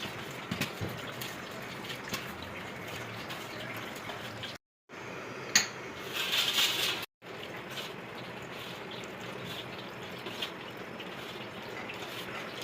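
Liquid splashing and trickling, with small scattered clicks and a brief louder hiss about six seconds in.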